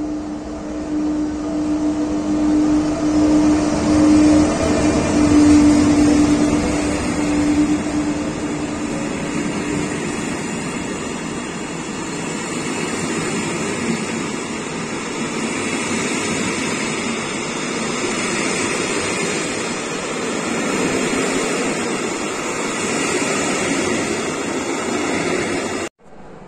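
Passenger train hauled by a Czech Railways electric locomotive rolling past close by. A steady hum from the locomotive fades out over the first ten seconds. After that there is the even rolling noise of the coaches' wheels on the rails, and it cuts off just before the end.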